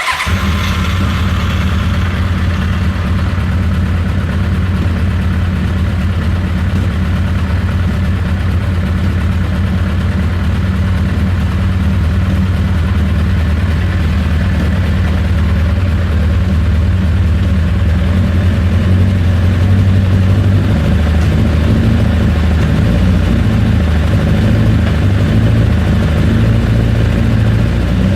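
Vehicle engine idling roughly, a steady but uneven low-pitched running that begins abruptly.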